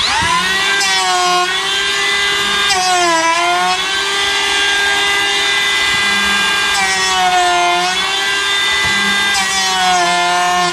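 A cordless electric hand planer is running, spinning up at the start and shaving the tops of wooden tenons down to 3/4 inch. It makes a steady high whine whose pitch sags briefly each time the blade bites into the wood, about three times.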